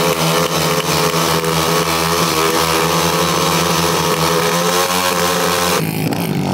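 Two 190cc pit bikes' single-cylinder engines held at high revs while the rear tyres spin in burnouts, making a loud, steady drone over tyre noise. Near the end it cuts abruptly to a lower, duller engine sound.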